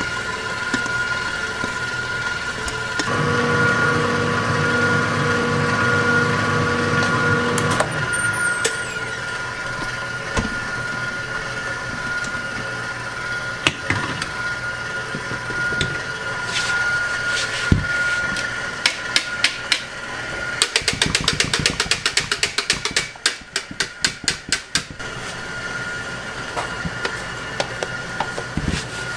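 Commercial planetary stand mixer running with a steady motor whine. A deeper hum joins about three seconds in for about five seconds. Late on, a fast run of sharp clicks and clatter follows as the steel bowl is handled.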